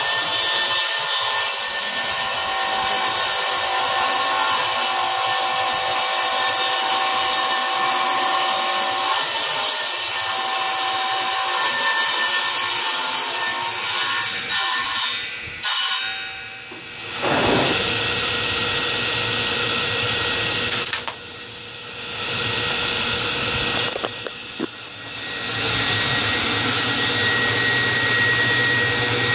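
Table saw ripping along the edge of a rough-cut board, the motor and blade cutting steadily. About fourteen seconds in the sound breaks off with a few knocks and drops sharply, then a different steady machine drone with a low hum takes over.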